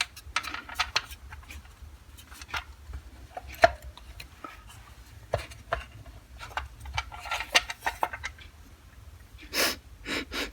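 Handling of a vintage military multimeter at the bench: scattered small clicks, taps and rubbing of the case and its parts. Near the end there are two short sniffs.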